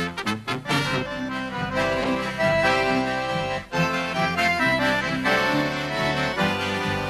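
A brass band of trumpet, French horn and tuba plays short detached notes and stops about a second in. Accordion music then takes over, with strummed acoustic guitar and upright bass underneath and a brief break in the middle.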